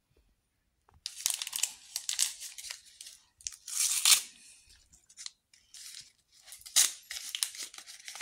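A small crinkly wrapper packet being torn open and crumpled by hand. It comes in repeated bursts of tearing and crinkling that start about a second in and are loudest near the middle.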